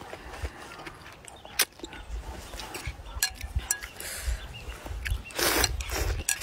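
A person slurping noodles from a bowl of spicy noodle soup, with a loud slurp about five seconds in and a shorter one just after. In between come scattered light clicks of chopsticks against the bowl.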